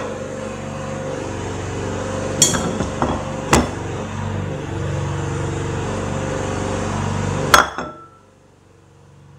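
Several sharp knocks and clinks of hard objects, the loudest near the end, over a steady low hum that stops suddenly just after the last knock.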